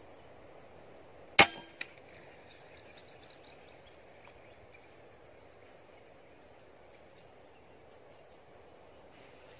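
A single shot from a scoped air rifle about a second and a half in: one sharp crack, with a fainter click about half a second later. Faint short high chirps follow over a low steady hiss.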